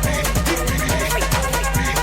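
Electronic dance music with a steady beat: repeated kick drums, fast even hi-hat ticks and a sustained deep bass.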